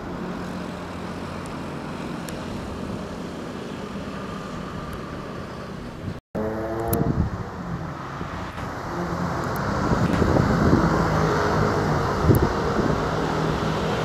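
Outdoor rumble of jet airliners on landing approach mixed with road traffic. About six seconds in the sound cuts off abruptly. It comes back with a brief falling tone, then a louder, growing jet rumble over passing road traffic toward the end.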